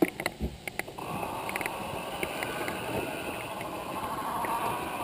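Electric radio-controlled scale rock crawler driving up a rocky dirt trail: a few knocks in the first second, then a steady whirring from about a second in.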